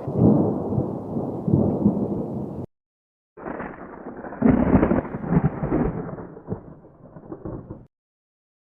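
Thunder rumbling in rolling swells, in two stretches that break off abruptly, with a short gap between them.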